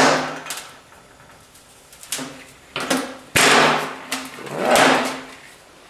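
Harbor Freight sheet-metal bender being worked as a piece of sheet steel is bent into a fold: a series of metal clanks and scraping swells, the loudest beginning sharply about three and a half seconds in.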